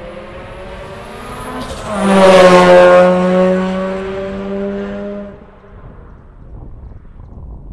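Rally car passing close at speed on a tarmac stage, its engine held at high revs. It is loudest about two seconds in, where the engine note drops slightly as the car goes by, then holds steady and fades as it pulls away, gone a little after five seconds.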